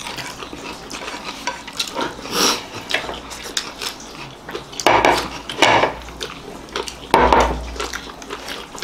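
Eating by hand: fingers scooping rice and egg curry off plates, with small clicks and scrapes against the plates and chewing and lip-smacking, in short irregular bursts.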